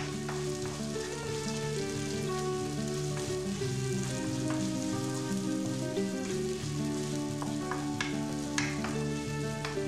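Sliced onions with nigella and mustard seeds sizzling in hot butter in a wok, stirred and scraped with a wooden spatula, with a few sharper scrapes near the end. Soft background music with held notes plays underneath.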